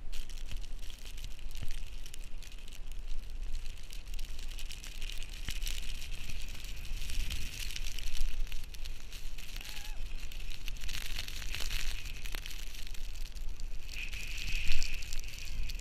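Blizzard wind blowing across the microphone: a steady low rumble under dense crackling and hiss, which grows stronger near the end.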